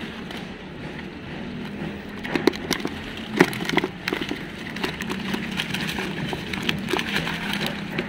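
Hands rummaging through wet dead leaves and mud, with scattered sharp crackles and snaps, over a steady low hum.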